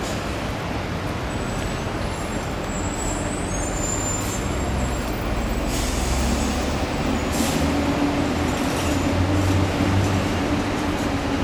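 A heavy engine running steadily: an even noise with a low hum and a held mid tone that comes in about three seconds in and grows stronger around seven seconds.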